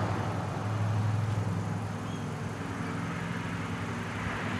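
Steady low mechanical hum holding one low tone with an overtone, over a broad background noise.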